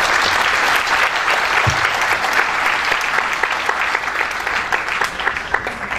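Audience applauding: a dense, steady run of hand-clapping that begins to die away near the end.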